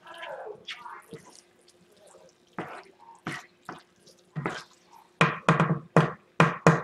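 A spoon stirring ground beef and chopped green pepper in a skillet: a run of short knocks and scrapes against the pan, louder and closer together in the last two seconds.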